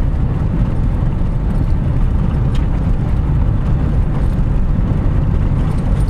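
Steady low rumble of road and engine noise heard inside the cabin of a 2018 Toyota 4Runner as it drives along.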